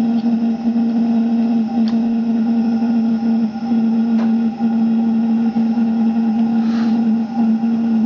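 Steady hum of the gas burner firing the Graupner 5000 model steam plant's boiler while it raises steam, with two faint ticks and a short hiss about seven seconds in.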